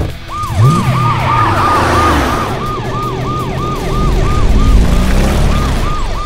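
Police car siren in a fast yelp, sweeping up and down about three times a second, over a vehicle engine that revs up about half a second in.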